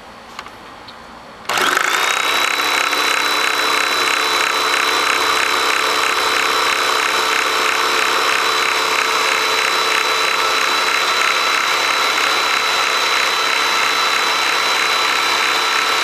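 Upright vacuum cleaner switched on about a second and a half in: its motor spins up to a loud, steady run with a high whine while the belt-driven brush roll turns, then cuts off abruptly at the very end. The belt is a temporary repair, glued and sewn with dental floss, and the owner finds its knot sticking up and hitting the plastic housing as it goes round.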